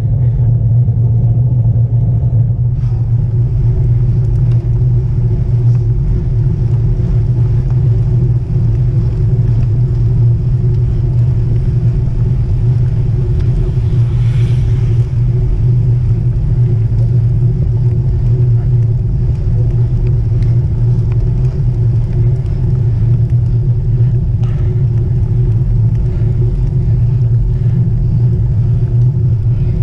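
Steady low rumble of wind buffeting the microphone of a camera carried on a road bike at speed, mixed with road noise from the group of bicycles.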